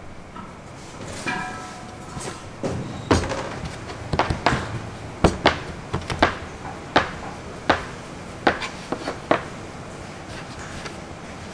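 A run of about a dozen sharp, irregular knocks and clacks over several seconds, with a brief high pitched squeak about a second in.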